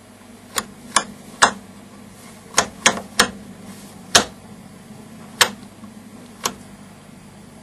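Rotary mains-setting switch on an AVO VCM 163 valve tester clicked from position to position while the tester is set up: nine sharp clicks at uneven intervals over a faint steady hum.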